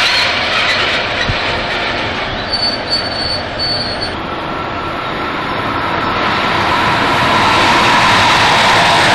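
A locomotive-hauled train of Silberling coaches running past close by: a steady rumble of wheels on the rails, with brief high-pitched wheel squeals around three seconds in, and the rumble growing louder from about six seconds on.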